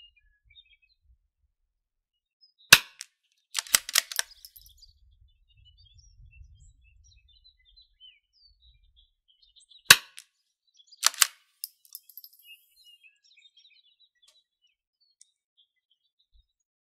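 Two shots from a long-barrelled .22LR rifle, sharp single cracks about seven seconds apart. Each shot is followed about a second later by a quick run of metallic clicks as the bolt is worked to chamber the next round.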